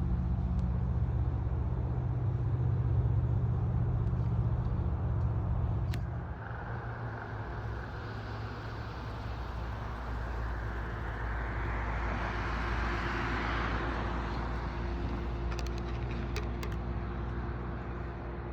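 Road traffic noise: a steady low rumble that drops about six seconds in, then a vehicle passing, its hiss swelling and fading.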